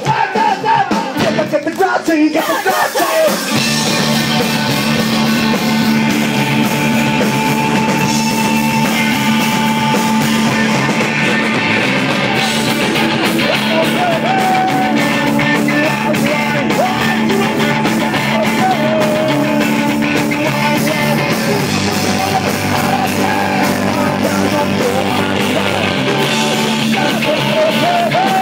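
Live punk rock band playing loud, with distorted electric guitar, bass and drums. After a loose start, the full band comes in together about three and a half seconds in and plays on steadily.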